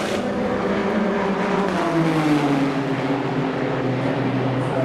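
Race car engine running in the pit lane, its pitch dropping at about two seconds and then holding steady. A sharp click comes right at the start.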